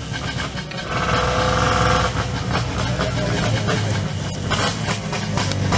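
Motorcycle engine running steadily with a low, even rumble, and a higher steady note over it for about a second near the start. The sound cuts off abruptly at the end.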